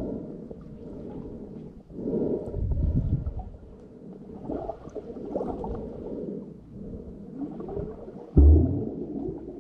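Muffled water movement heard through a submerged camera: low sloshing and rumbling swells, with a sudden dull thump near the end.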